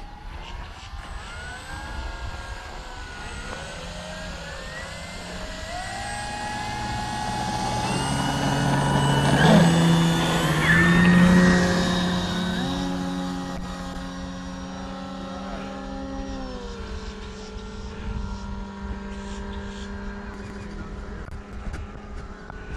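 Two electric Flex RV-8 60E RC model planes taking off together: motor and propeller whine made of several tones that step up and down in pitch as the throttles move. The sound builds to its loudest about ten seconds in as the planes pass close, then fades as they climb away.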